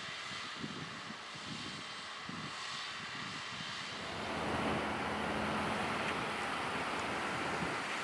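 Tractor engine running in a field, with wind buffeting the microphone. A broad rushing noise swells louder about halfway through.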